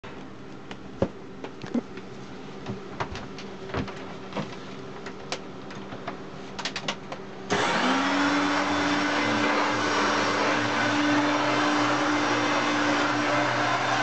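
A few light clicks and knocks, then about halfway through a Hoover Turbopower One upright vacuum cleaner switches on: its motor spins up with a quick rising whine and settles into a steady running roar.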